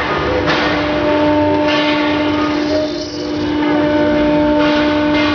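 CNC router spindle running with a steady whine while its bit cuts acrylic, a hissing cutting noise over it that swells and eases as the cut goes on.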